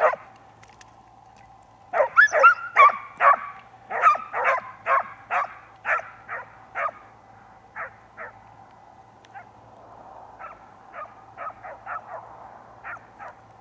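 Hunting dogs barking on a wild boar chase: a sharp bark at the start, then a fast run of barks about two a second for several seconds, thinning into fewer, fainter barks.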